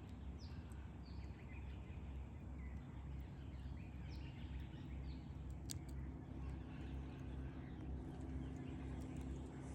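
Small birds chirping, many short chirps scattered through, over a steady low rumble, with a single sharp click about six seconds in.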